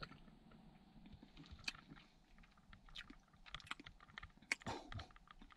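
Faint, scattered small clicks and smacks of a man's mouth tasting gooey chocolate spread.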